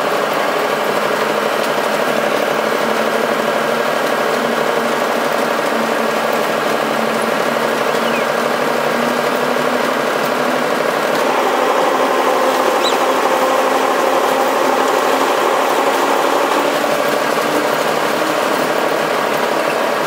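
Locomotive cab noise while running: the engine's steady drone with rattle and vibration, getting somewhat louder for several seconds from about the middle.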